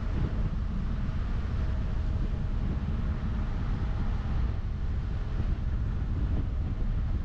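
Steady low rumble of wind buffeting the microphone, with road noise from a car driving.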